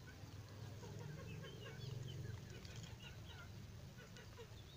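Kampung chickens clucking quietly, with many short high chirps scattered throughout.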